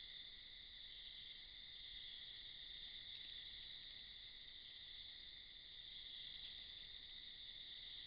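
Steady night chorus of insects such as crickets, a faint unbroken high trill with no other distinct event.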